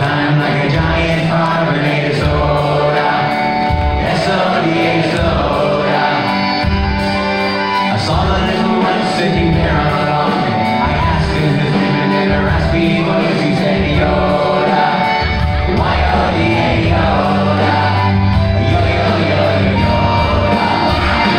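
Live band playing a song with a lead singer and a chorus of backing vocalists over a steady beat, heard from the audience in a large hall.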